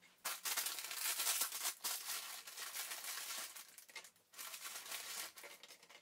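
Dry, crisp etimek rusk slices being handled and laid into a glass baking dish: a crackly rustling and scraping of the toasts against each other and the dish, breaking off briefly about four seconds in.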